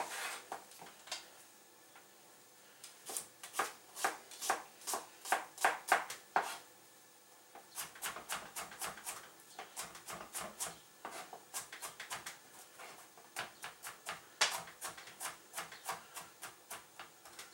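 Kitchen knife chopping garlic on a plastic cutting board: runs of quick sharp knocks, about three to four a second, with short pauses between runs.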